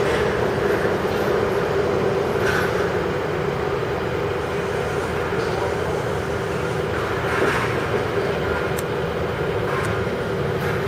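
Steady mechanical drone with a constant mid-pitched hum, and a few faint brief hisses.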